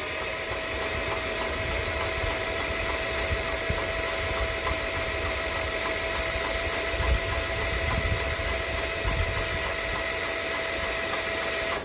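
Electric starter cranking the 18 hp Kohler engine of an Ariens Zoom 1840 zero-turn mower for about twelve seconds without it firing: a steady starter whine that rises as it spins up and cuts off suddenly at the end.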